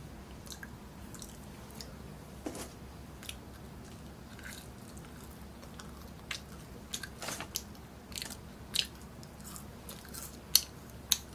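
Faint steady low hum with scattered small clicks and crackles, sparse at first and more frequent in the second half, with two sharper clicks near the end.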